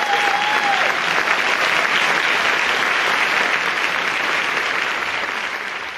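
Audience applauding, with a single high held note that ends about a second in. The clapping tapers off near the end.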